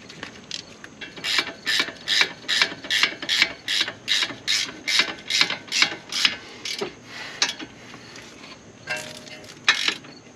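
Hand ratchet wrench being worked back and forth on a bolt, its pawl clicking in an even run of about two to three strokes a second for about five seconds, then a few scattered clicks near the end.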